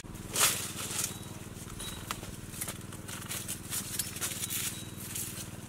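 Rustling and snapping of dry leaf litter and dragon fruit cactus stems, with scattered light clicks and footsteps, over a steady low hum. A louder rustle comes about half a second in.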